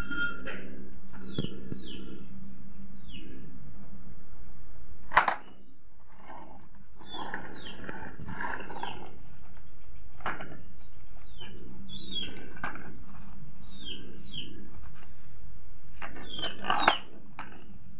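Birds chirping, many short falling calls repeated throughout, over a steady low hum. Two sharp clicks, one about five seconds in and one near the end.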